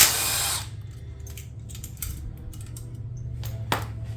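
A power tool spins briefly in the first half second, loosening a valve body bolt on a 4L80E transmission, followed by small metallic clicks and a sharp click near the end as the bolts are worked loose. A steady low hum runs underneath.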